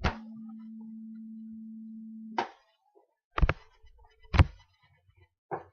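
A steady hum that stops abruptly with a click about two and a half seconds in, then three sharp knocks or thumps about a second apart, the middle one the loudest.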